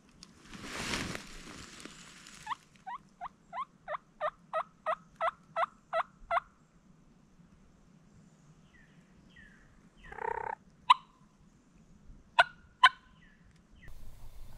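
A wild turkey or a hunter's call: a series of about eleven turkey yelps, evenly spaced and growing louder, then a brief lower call about ten seconds in and three sharp, short clicking notes near the end. A short swish of movement comes at the very start.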